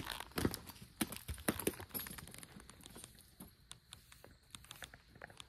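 Irregular sharp clicks and knocks from harnessed Belgian draft horses and their tack, dense for about the first two seconds and then thinning out.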